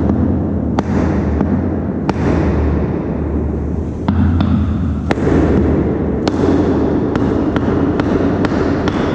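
Hammer blows on a wooden block held against the crossbar of an old oak wine barrel's head door, knocking it loose to open the barrel. About a dozen sharp knocks at uneven intervals, coming faster in the second half, over a steady low rumble.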